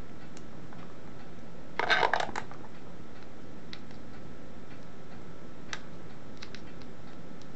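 Handling noise of a multimeter test probe and a battery: small clicks and scrapes as the probe tip is pressed and shifted on the battery terminal, with a short cluster of louder clicks about two seconds in and a few faint ticks later, over a steady low hiss.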